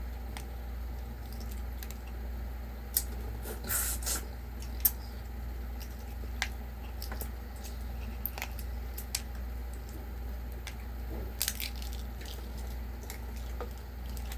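Close-up eating sounds: scattered wet clicks and smacks of chewing chicken, with a brief cluster about four seconds in and another near eleven seconds, over a steady low hum.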